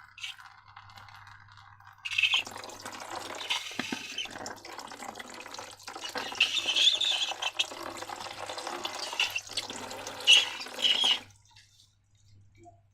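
Wet liquid sounds from a slime mixture being handled, starting about two seconds in and stopping abruptly about a second and a half before the end.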